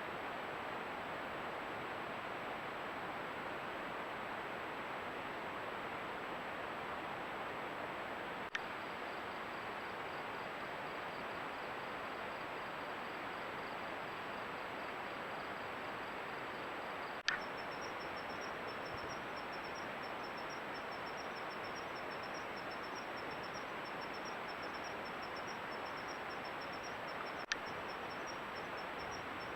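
Steady hiss of a camera microphone left running outdoors, broken by three short clicks where recorded clips join. From the first click on, a cricket chirps in a fast, high-pitched pulsing trill that steps up slightly in pitch after the second click.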